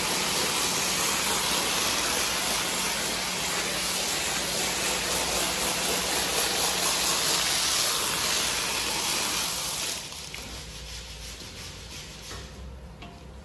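Pressure washer wand spraying a high-pressure water jet onto a wet carpet, a loud steady hiss that cuts off suddenly about ten seconds in.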